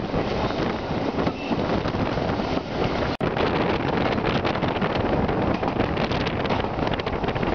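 Wind rushing over the microphone held at the open window of a moving steam-hauled passenger train, with the train's running noise underneath. The sound drops out for an instant about three seconds in.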